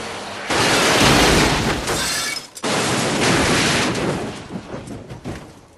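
An SUV crashing and rolling over, with glass shattering: two loud crashes, one after the other, then scattered bits of debris that settle and fade away.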